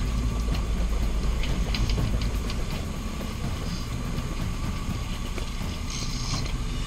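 Boat engine idling, a steady low rumble, heaviest in the first couple of seconds, with a few faint ticks over it.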